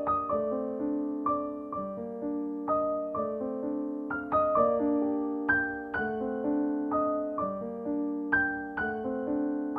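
Background music: gentle piano playing a steady pattern of ringing notes and chords.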